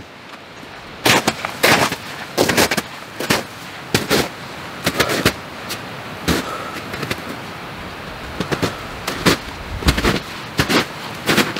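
Footsteps crunching, a short sharp crunch roughly every half second to second at an uneven walking pace.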